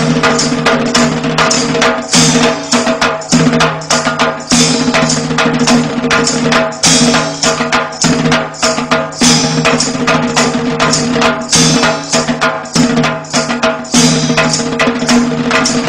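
Music with fast, dense percussion hits over steady held low notes.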